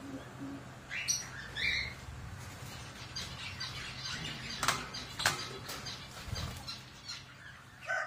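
Caged lovebirds chirping and twittering in short high calls, with scattered small clicks and two sharp clicks around the middle, over a faint steady low hum.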